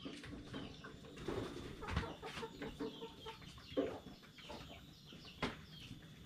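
Chickens clucking repeatedly in short calls, with a single sharp click near the end.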